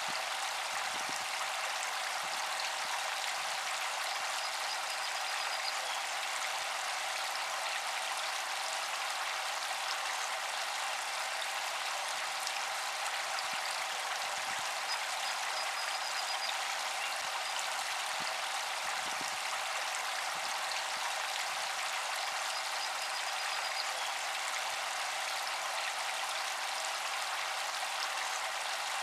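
Small solar fountain pump's spray falling back onto pond water: a steady splashing patter, with a faint steady tone underneath.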